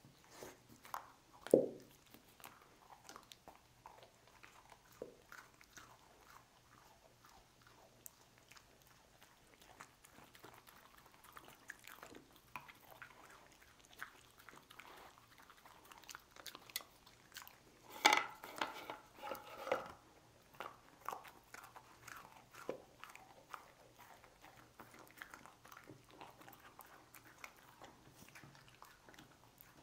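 A dog chewing and crunching crisp round cookies, with scattered small crunches throughout. A sharp crunch comes about a second and a half in, and a louder run of crunching comes about two-thirds of the way through.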